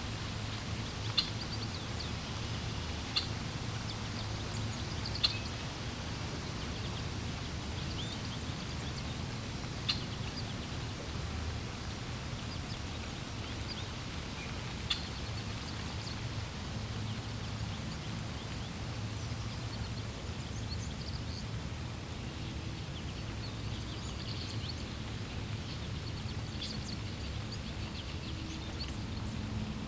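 Water flowing steadily with a low rush, and birds chirping: a few short, sharp chirps every few seconds in the first half, then softer, more scattered chirping later.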